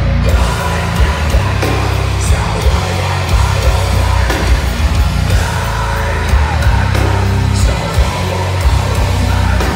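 Heavy metal band playing live and loud: distorted guitars and bass over a fast, pounding drum kit.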